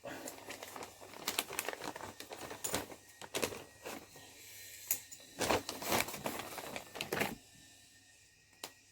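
Hands handling parts and wrapping: irregular rustling, crinkling and small clicks that stop about seven seconds in, with one more click near the end.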